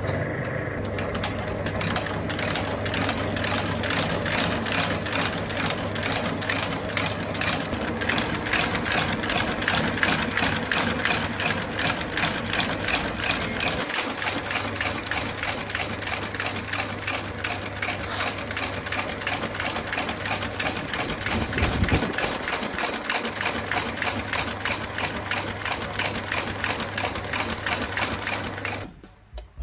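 Shoe-sole stitching machine sewing a Dainite rubber sole to the welt: a steady motor hum under a fast, even clatter of the needle stroking. It stops just before the end.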